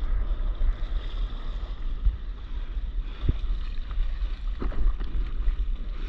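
Wind buffeting the microphone over choppy seawater lapping and splashing close by. There are two short thumps a little past halfway.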